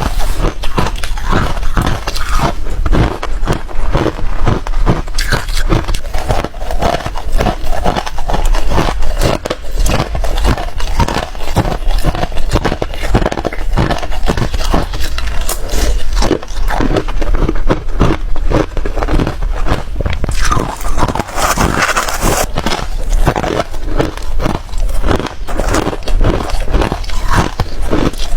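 Hard ice being bitten and chewed close to the microphone: a continuous run of loud, sharp crunches and cracks.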